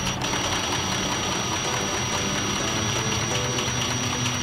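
Cordless impact driver running steadily with a high whine, turning a rebuilt engine's oil pump through the distributor hole to prime the dry oil galleries and bearings; it stops right at the end.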